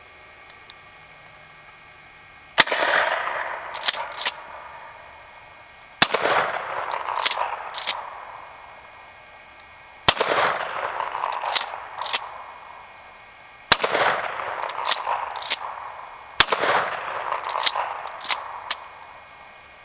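Pump-action shotgun fired five times, about three to four seconds apart, each blast trailing off in a rolling echo over the field. A couple of smaller sharp clicks follow a second or so after most shots.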